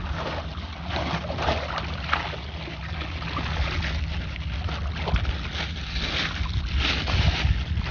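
Seawater splashing and sloshing in irregular surges as a bag of freshly gathered clams is dunked and swished in the shallows to rinse out the sand, over a steady low wind rumble on the microphone.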